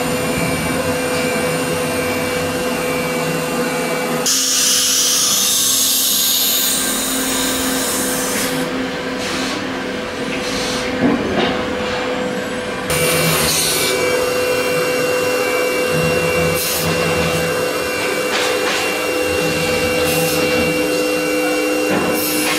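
CNC router with a 9 kW air-cooled HSD spindle running and cutting MDF: a steady whine over machine noise. About four seconds in the sound changes abruptly to a loud hiss, and it changes back about thirteen seconds in.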